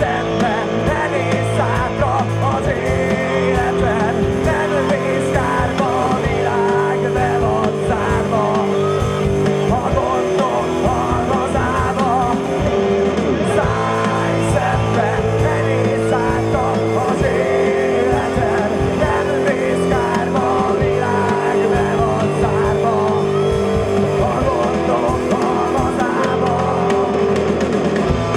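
Live rock band playing with electric guitars, bass guitar and a drum kit, and singing at times.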